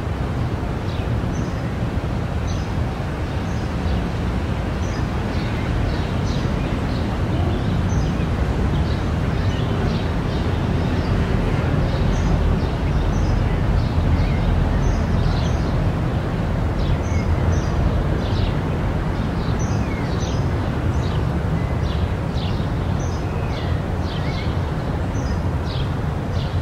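Outdoor street ambience: a steady low background rumble with many small birds chirping in short high calls throughout.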